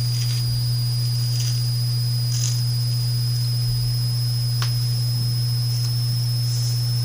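Steady low electrical hum with a faint high-pitched whine over it, and a few soft rustles and a single click as a squishy toy is handled.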